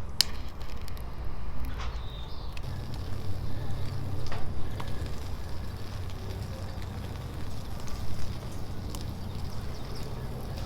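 Wood fire crackling in a Picogrill 760 fire pit, with scattered sharp pops at irregular times over a low steady rumble.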